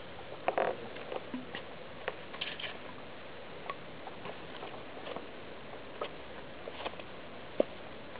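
Faint, irregular crunching and scuffing of footsteps on thin wet snow and slush, over a steady hiss. The loudest crunch comes about half a second in, as the man rises from the bench.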